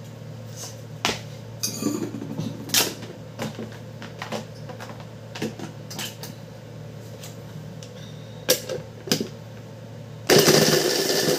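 Plastic clicks and knocks as a Braun hand blender's motor unit is fitted onto its chopper bowl. About ten seconds in the motor starts suddenly and runs loud, chopping siling labuyo (bird's-eye) chilies.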